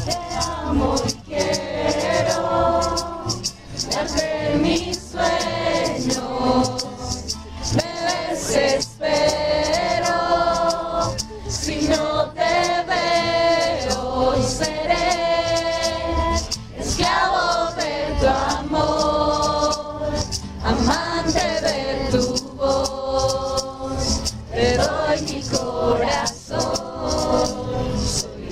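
Music: voices singing together over rhythmic percussion that sounds like shakers or tambourine.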